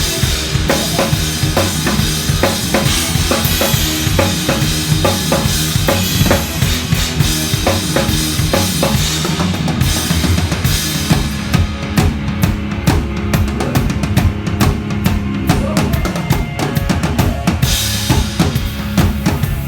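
Drum kit played in a steady groove, kick and snare with cymbals on top. For several seconds past the middle the cymbals stop and only the drums carry on, then the cymbals come back in near the end.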